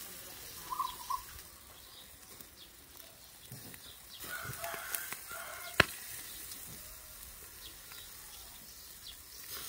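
Eel pieces sizzling and crackling on a wire rack over a charcoal fire, with one sharp click of metal tongs against the grill about six seconds in. A few short animal calls sound about a second in and again around the middle.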